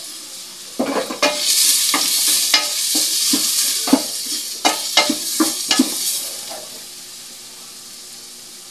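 Ginger and other aromatics sautéing in hot oil in a stainless steel pot, sizzling, while a wooden spoon stirs and knocks against the pot. The sizzle is loudest with repeated knocks up to about six seconds in, then settles to a softer steady hiss.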